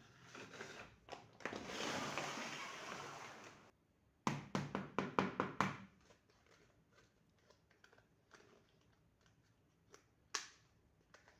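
Unboxing handling of a miniature plastic toy kitchen set. A rustle of packaging runs for about three and a half seconds, then a quick run of about eight clicks and taps of small plastic pieces, then scattered faint taps with one sharper click near the end.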